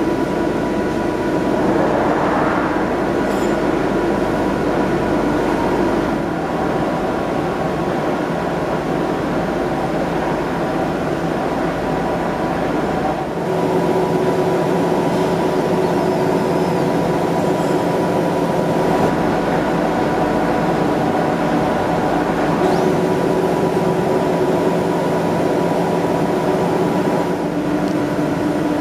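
Marwin Max E Mill CNC horizontal milling machine running under power: a steady mechanical hum made of several held tones, which shift to a new set about halfway through.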